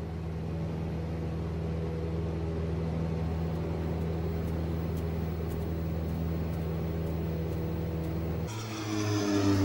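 Light aircraft's piston engine and propeller droning steadily. Near the end the sound changes abruptly to a louder engine note that falls in pitch.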